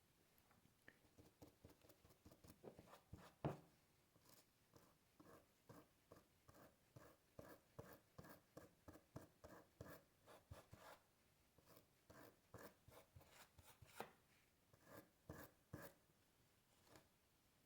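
Faint, quick scrubbing strokes, about two or three a second, as flux residue is cleaned off a freshly soldered board with alcohol. A few slightly louder ticks come between the strokes.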